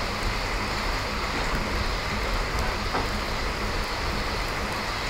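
Heavy rain drumming steadily on a farm building's roof, a constant hiss with a low rumble under it.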